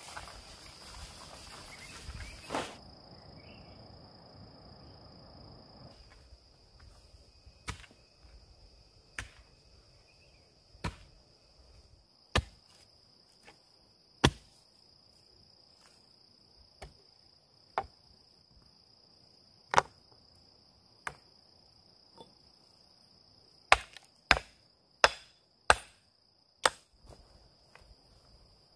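Sharp hatchet blows on wood, struck singly a second or two apart, then a quick run of about five near the end. A steady high insect drone goes on underneath.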